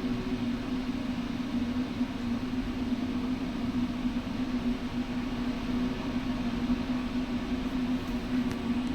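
Steady drone of a ship's engines: a constant low hum over an even rumble, unchanging throughout.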